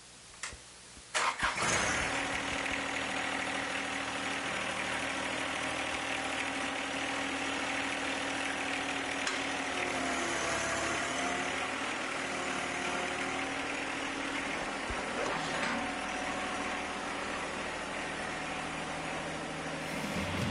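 John Deere 1 Series compact tractor's three-cylinder diesel engine comes in about a second in and then runs steadily, with a brief rise and fall in pitch near the middle.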